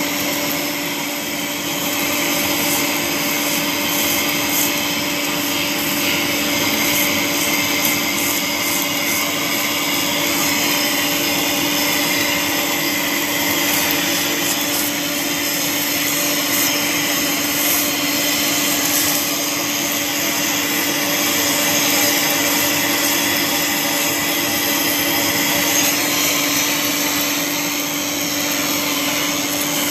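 Polygon pole welding machine running through a weld: a steady machine hum with a continuous whirring hiss.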